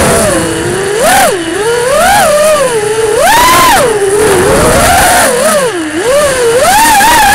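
FPV quadcopter's brushless motors and propellers whining in flight, recorded on the onboard camera. The pitch swoops up and down about once a second as the throttle is worked.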